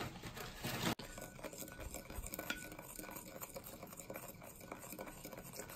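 Wooden spoon stirring beet powder and rice flour in a glass bowl: soft, irregular scraping with small taps against the glass, starting about a second in.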